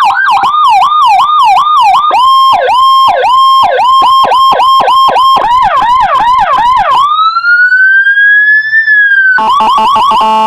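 Electronic police-escort siren module, 150-watt, through a horn speaker, playing Whelen HHS 3200-style tones. It cycles through several patterns: a fast yelp, then a steady tone broken by quick dips about twice a second, faster chirps again, a long slow rising wail from about seven seconds in, and a rapid stepped warble near the end.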